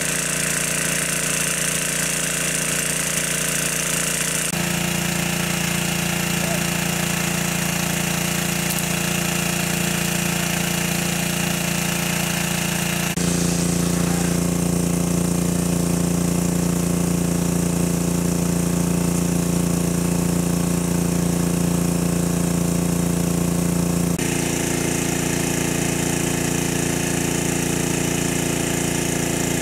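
Small engine of a water pump running steadily at constant speed with a fast, even pulse. The pitch and tone shift abruptly three times.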